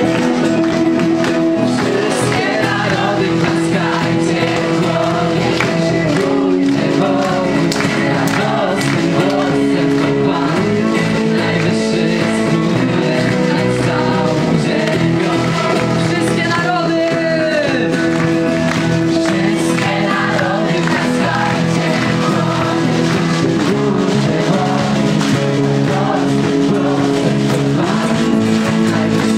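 A lively worship song played live, with a singer over guitar accompaniment and a crowd singing along.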